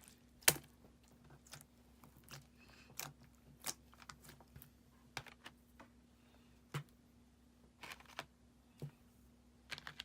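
Clear slime being kneaded and folded by hand, making irregular sticky clicks and pops as air pockets burst, one or two a second, the loudest about half a second in.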